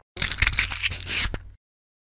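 Logo-animation sound effect: a rough, noisy rush with a low hum under it, lasting about a second and a half and cutting off suddenly.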